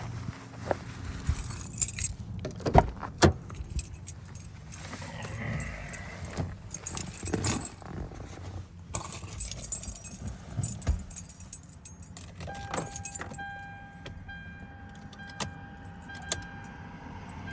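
A bunch of car keys jangling and clicking as it is handled, with irregular knocks and rattles. From about two-thirds of the way through, a steady electronic tone sounds in the background.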